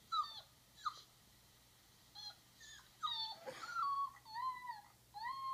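Dog whimpering: a run of short, high, falling whines, then longer drawn-out whines in the second half.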